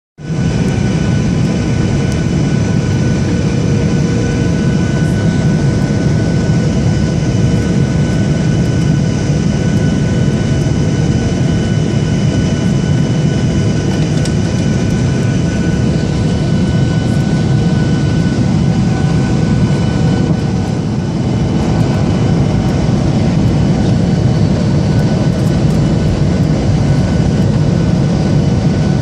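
Steady cabin noise inside a Boeing 737-800 airliner in flight: its CFM56 jet engines running under a rush of airflow, with several steady whining tones on top. It drops slightly in level for a moment a little over twenty seconds in.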